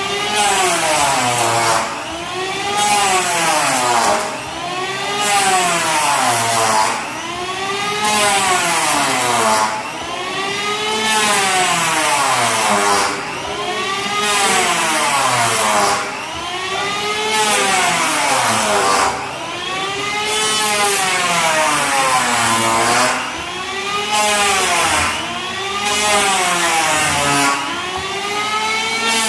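Motor of a woodworking power tool running hard, its pitch rising and falling in regular swells about every two seconds, with a high hiss that comes and goes.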